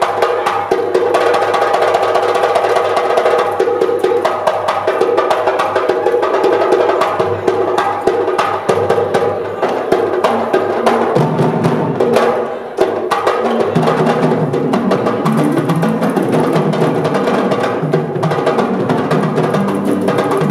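An ensemble of Senegambian sabar drums plays a fast, dense rhythm of sharp strokes struck with hand and stick. A sustained melodic part runs under the drumming and drops lower in pitch about halfway through.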